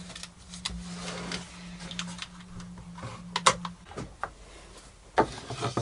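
Light clicks and knocks of plywood workpieces being picked up and set down on a workbench, over a steady low hum that stops a little past the middle.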